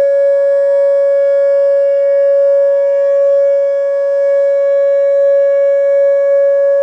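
Whelen WPS-2910 electronic outdoor warning siren sounding its steady alert tone: a single loud, unwavering pitch, dipping slightly in level about midway.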